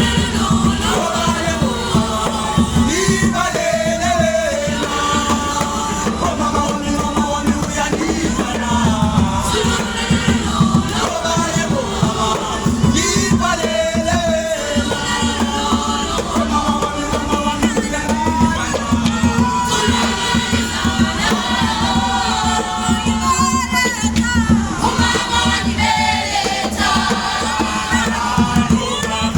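A group of children singing together, many voices at once, with a steady beat of low strokes underneath.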